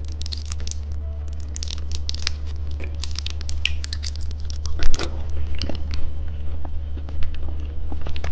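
Plastic wrapper of a small candy crinkling and rustling as it is handled, a run of irregular small crackles with a sharper tap about five seconds in, over a steady low hum.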